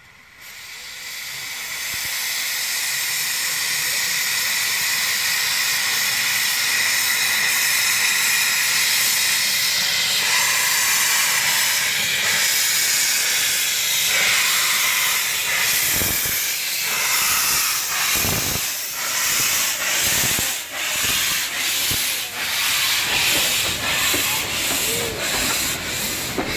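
Narrow-gauge steam locomotive hissing loudly as steam blows from its open cylinder drain cocks, starting suddenly. About sixteen seconds in, the engine starts away with its exhaust beats, slow at first and then quickening as the train moves off.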